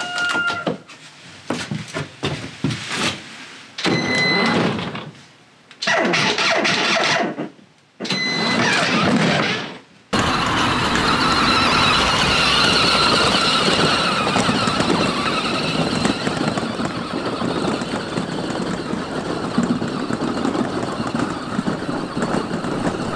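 Electric kids' ride-on toy truck driving under remote control, its drive motors and gearboxes whining steadily through the second half. It follows several short, cut-up sounds in the first ten seconds, two of which hold a brief steady beep.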